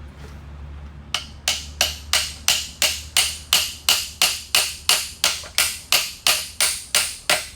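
A long, even series of sharp taps or knocks, about three a second, starting about a second in over a low steady hum.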